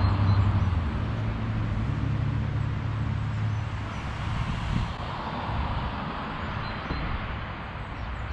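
Steady low rumble of passing road traffic, with a vehicle's hum strongest in the first few seconds and fading after that.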